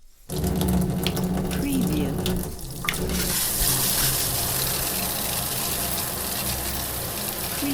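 Shower running: water starts about a quarter second in with a low steady hum and scattered drips, then around three seconds in the spray opens into a full, steady hiss of falling water.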